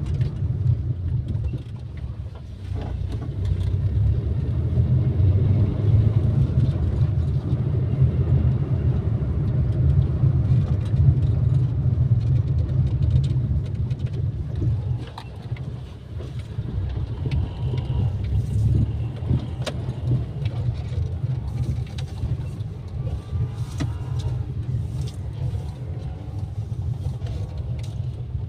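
Maruti WagonR being driven on a road test after a clutch release bearing replacement. Its engine and road noise make a steady low rumble that rises and falls in loudness, with brief dips about two seconds in and about halfway through.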